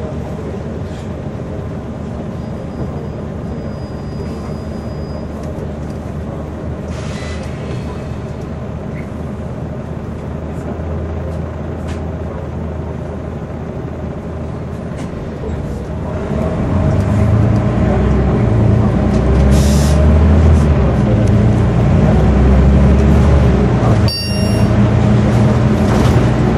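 Scania OmniCity single-deck bus heard from inside the cabin while driving: steady engine and road noise. About sixteen seconds in, the engine grows louder into a deep, pulsing drone. A brief hiss of air comes a few seconds later.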